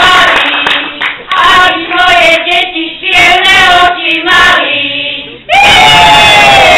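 A group of women singing a Slovak folk song in held, phrase-by-phrase notes, ending in one long, loud held note that starts about five and a half seconds in and slides down at its end.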